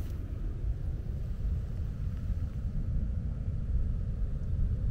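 Wind buffeting the camera microphone: a steady, uneven low rumble.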